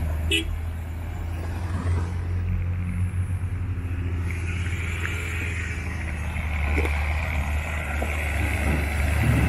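Pickup truck engine running low and steady as the truck wades through a shallow river. Water splashing and rushing around the wheels joins in about halfway through.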